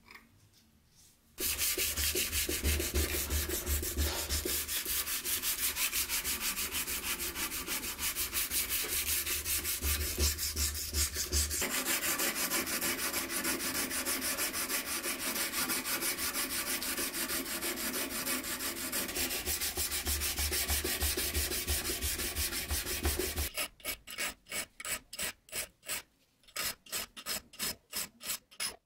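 Steel knife blade being hand-sanded with an abrasive in fast back-and-forth strokes, a steady rapid rubbing. Near the end it changes to a round file working the serrations on the blade's spine, about three rasping strokes a second.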